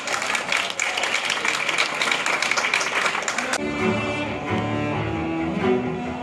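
Applause, then about three and a half seconds in, two cellos playing together in held, bowed notes.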